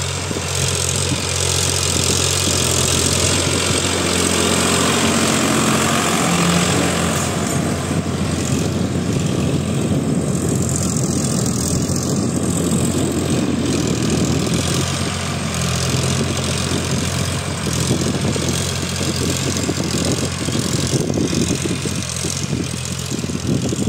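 Eicher 551 4WD tractor's three-cylinder diesel engine running steadily under load while it pulls a cultivator through ploughed soil, with a steady rushing noise over the low engine hum.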